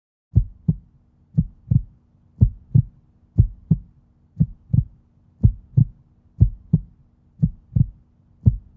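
Heartbeat sound effect: pairs of low lub-dub thumps about once a second, over a faint steady hum, starting just after the beginning.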